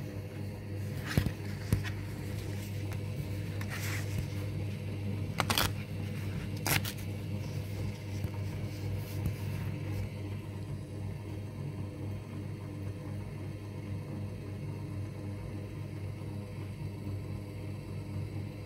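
Paper-creasing machine running with a steady low hum, with several sharp clicks and paper scrapes in the first seven seconds as sheets are handled and fed through it.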